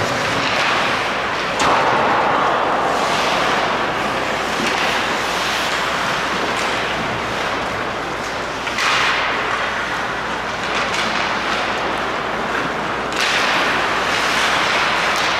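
Ice hockey rink game ambience: a steady rushing noise that surges suddenly three times and eases off after each.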